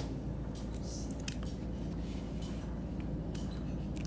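A few faint clicks and taps of dental instruments being handled, over a steady low hum.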